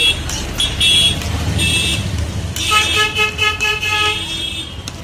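Street traffic with vehicle horns honking: short high toots early on, then about halfway through a horn sounding in a rapid run of pulses for over a second, over a steady low traffic rumble.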